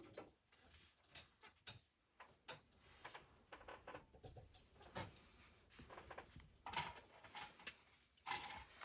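Faint, irregular clicking and tapping, a few sharp clicks a second, against near-silent room tone.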